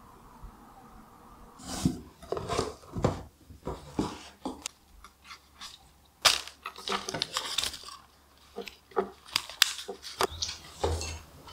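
Paper wrapping around a flower bouquet rustling and crinkling as hands unwrap and handle it, in irregular crackles with a sharper one about six seconds in. The first couple of seconds hold only a faint steady room hum.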